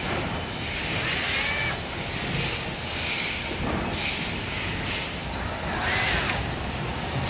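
A power tool running in several bursts with short pauses, with a few brief high squeaks, as parts are taken apart.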